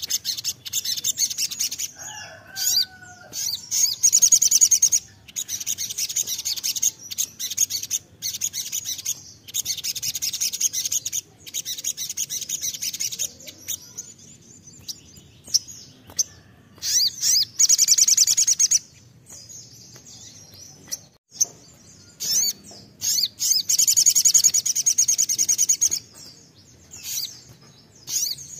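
Male brown-throated sunbird (kolibri sogon) in full song, or 'nembak': rapid, high trilled phrases of a second or two each, repeated with short breaks, with a longer pause about two-thirds of the way through.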